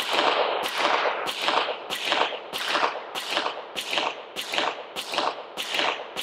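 Pistol shots from a Beretta 92-pattern handgun, fired one after another at a steady pace a little over half a second apart, about ten shots in all, each with a short echoing tail.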